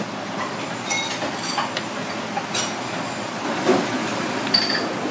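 Steady kitchen background noise, an even hiss and rumble, with a few light metallic clinks, the sharpest near the end.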